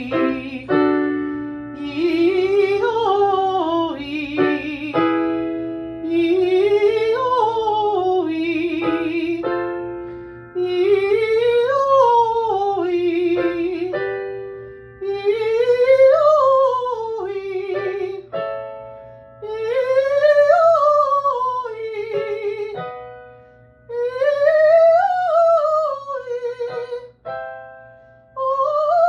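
A woman sings a vocal warm-up, a scale that rises and falls, about seven times over, each time a step higher. Piano notes sound between repetitions, giving each new starting pitch.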